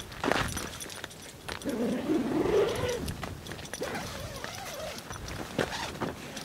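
A tent's door zipper pulled open in one sweep, its pitch wavering with the pull, followed by rustling of the tent's nylon fabric and a few light knocks.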